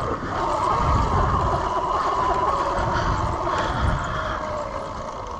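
Steady electric motor whine, with low wind rumble on the microphone.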